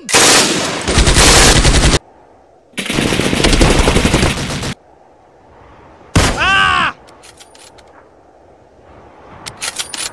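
Dubbed-in machine-gun fire in two rapid bursts of about two seconds each, then a short cry whose pitch bends up and falls away about six seconds in, and a few scattered sharp cracks near the end.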